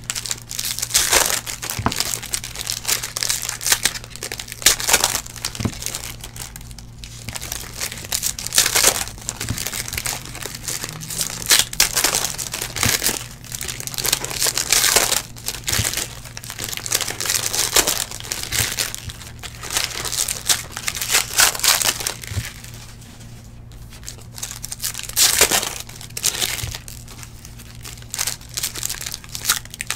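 Foil trading-card pack wrappers crinkling and tearing as packs are ripped open one after another, in irregular bursts.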